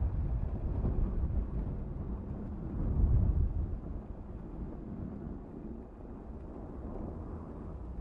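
Car driving: a steady low rumble of engine and road noise that swells about three seconds in, then eases.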